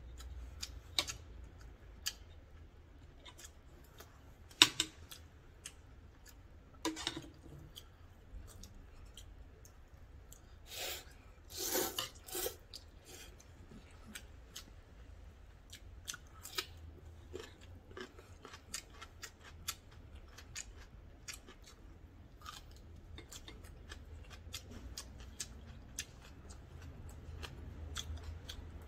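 Close-miked eating sounds: metal chopsticks and a spoon clicking and scraping against an aluminium ramen pot, with chewing between the clicks. Partway through comes a short cluster of longer, louder noisy sounds.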